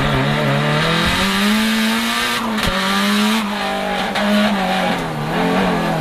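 Cabin sound of a 500 hp Lancia Delta Integrale Evo2's turbocharged 2.0-litre four-cylinder under hard acceleration on track. The revs climb for about two seconds, break off briefly about two and a half seconds in, then rise and fall again.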